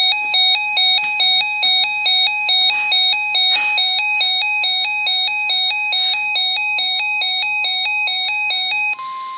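Weather alert radio alarm: an electronic tone warbling rapidly and evenly back and forth between two pitches. Near the end it cuts off and a single steady tone with static takes over, the weather radio's 1050 Hz warning alarm tone.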